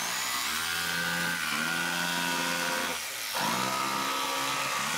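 Jigsaw cutting a sheet of 1/8-inch plywood, its motor running with a steady whine. About three seconds in, the pitch dips briefly and then comes back up.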